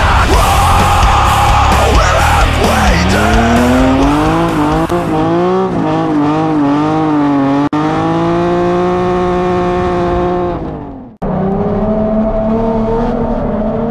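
A car revving hard and spinning its tyres in a burnout, a wavering, rising and falling squeal, over heavy rock music in the first few seconds. The sound cuts out abruptly about eleven seconds in, then a steady engine-like tone carries on.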